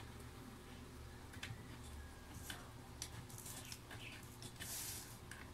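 Faint scattered clicks and light taps from a hand working on the underside of a laptop lying on a wooden desk, with a brief rustling scrape about four and a half seconds in.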